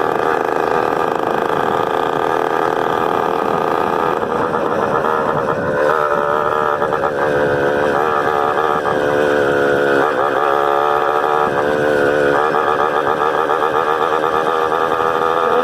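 Honda CG 125 motorcycle's single-cylinder engine running steadily, its pitch wavering up and down, with a brief drop and recovery in revs about ten seconds in.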